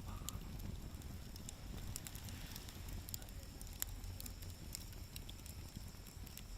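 Wood fire burning in a camp fire pit, crackling with scattered sharp pops over a steady low rumble.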